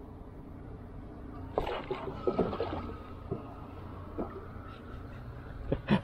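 Wooden paddle strokes in water from a small wooden canoe: splashes and short knocks of the paddle against the hull, several scattered through the middle and a louder one near the end, over a steady low rumble.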